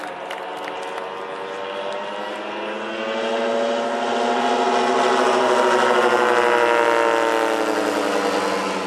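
Engine and propeller of a giant 130 kg scale Bücker Jungmeister model biplane running at power in flight, on an engine of roughly 620 cc. The sound swells to its loudest about five to seven seconds in, the pitch rising and then falling as the model passes.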